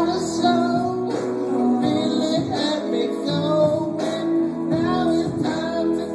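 A man singing into a microphone with guitar music.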